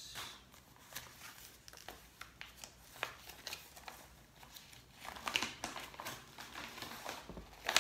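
Paper envelopes and bills rustling and crinkling as they are handled and opened, with scattered soft taps and crackles. The rustling is busiest around five to six seconds in, and a sharp snap comes near the end.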